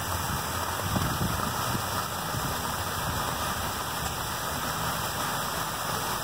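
Water pouring in a continuous sheet over the rim of a large bowl-shaped fountain and splashing onto the stone paving below: a steady rush of falling water.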